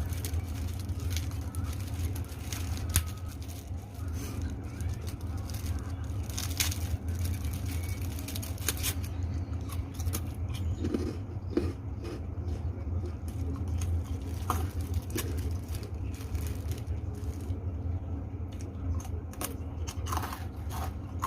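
Crisp fried kerupuk crackers being bitten and chewed, with irregular sharp crunches every second or so, over a steady low hum.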